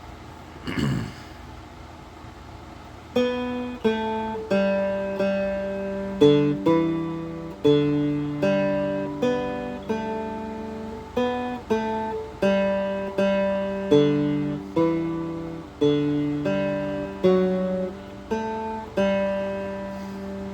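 Handmade guitar built around a lake rock, with the strings brushed once about a second in, then a slow melody picked out one note at a time from about three seconds in. Each note rings and fades before the next.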